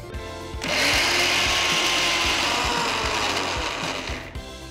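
Electric mixer grinder running for about four seconds, grinding soaked chana dal with ground spices into a coarse vada batter. It starts about half a second in and stops abruptly, its pitch dropping slightly as it runs. Soft background music plays throughout.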